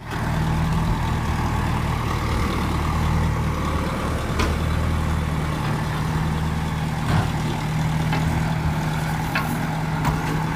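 An engine idling steadily, with a few short knocks or clanks over it.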